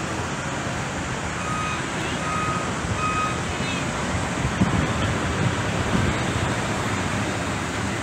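A vehicle's reversing alarm beeping evenly, three short beeps a little under a second apart within the first half, over steady outdoor rumble and noise.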